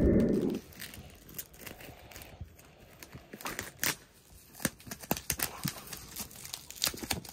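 Hands handling a product box, with a low thump in the first half-second, then irregular light taps, clicks and rubbing against the packaging.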